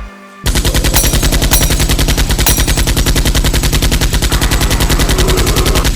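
Automatic gunfire: a long, rapid, evenly spaced string of shots, about a dozen a second, starting about half a second in.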